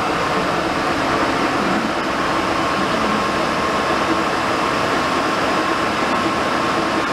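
WMW Niles DPS1 engine lathe running under power: a steady mechanical hum with a faint, even whine, as its drive and feeds turn.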